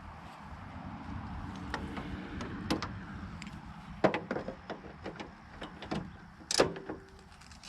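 Ratchet wrench with a 12 mm socket working the rusted bolts of a car hood latch: steady ratcheting at first, then a series of sharp metal clicks and knocks in the second half, the loudest about six and a half seconds in.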